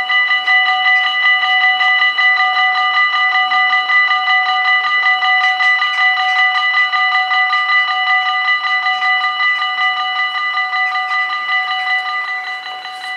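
Two electric warning bells of a Dutch level crossing ringing with fast, even strokes while the barriers lower, cutting off suddenly near the end once the barriers are down.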